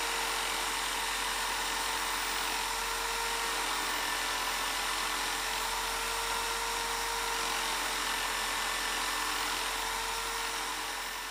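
Interskol DU-750ER electric drill running steadily as the drive motor of a homemade drum sander, with a wooden block being sanded against the spinning sanding drum. A steady whine over an even hiss that fades out near the end.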